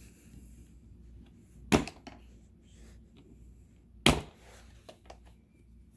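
Two sharp knocks about two and a half seconds apart, with a few faint clicks between them, from handling the hard plastic pistol case and its contents.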